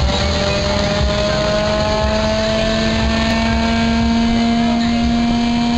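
Ice-chipping snow machine running steadily as it grinds block ice and blows it out through a hose, a machine hum that rises slightly in pitch over a rushing noise.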